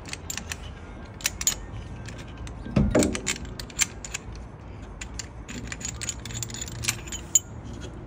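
Metal clinking and rattling from a brake caliper and hand tools being handled: many scattered sharp clicks, with a louder thump about three seconds in.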